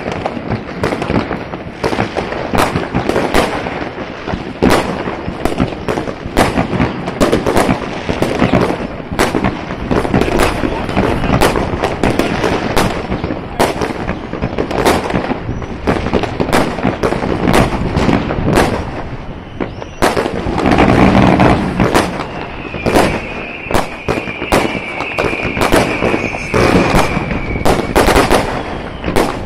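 Aerial fireworks going off in rapid succession: many sharp bangs and crackles, several a second. A long, high, steady whistle that falls slightly in pitch runs through the last several seconds.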